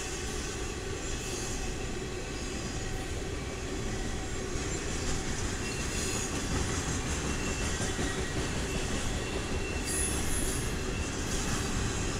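Double-stack intermodal container train rolling past: a steady rumble and rattle of the freight cars, with a faint thin wheel squeal at times and a few clacks of wheels over the rail.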